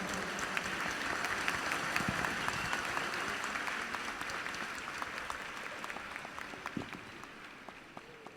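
Audience applauding as a sung number ends, the clapping gradually dying away.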